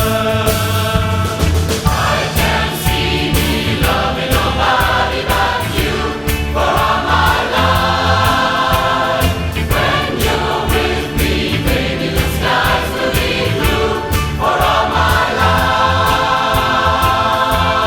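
A mass choir of about 400 voices singing a pop medley in harmony, in phrases, over a band accompaniment with a steady drum beat and bass line.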